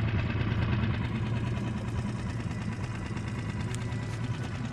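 Small dinghy outboard motor running steadily, a low, fast-pulsing hum.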